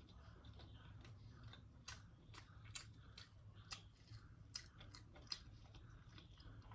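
Faint chewing and eating sounds: a person eating Maggi noodles with bread, with soft, irregular wet clicks and small crunches of the mouth at close range.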